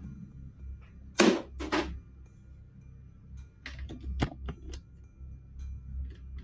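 Two sharp bangs about half a second apart, then a few lighter clicks, over a low steady hum.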